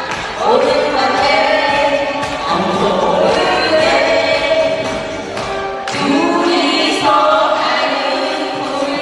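Two women singing a Korean trot song into microphones over amplified band accompaniment, their voices carried through the PA.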